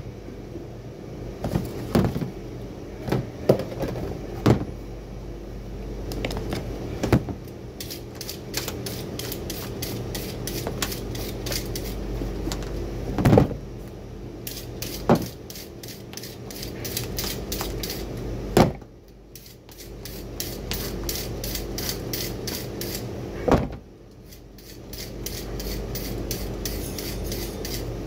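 A carrot scraped with a hand-held kitchen tool in quick, even strokes, about three a second, starting some eight seconds in. Scattered knocks of carrots and tools against the cutting board and container come before and between the strokes.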